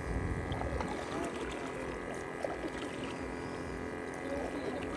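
Water lapping and sloshing against a small inflatable boat, with a low rumble underneath.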